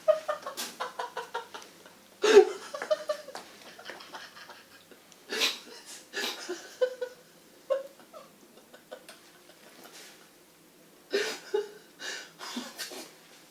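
Short bursts of laughing and giggling, broken by scattered sharp clicks and a loud knock a couple of seconds in.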